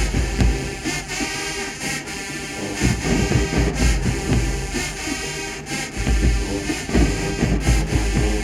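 Marching band playing: brass over drumline beats.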